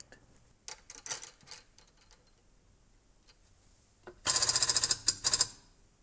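Light metal clicks as a copper cable lug and the hydraulic crimper's dies are handled. Then, about four seconds in, a loud, fast, even rattle for about a second, followed by two short bursts.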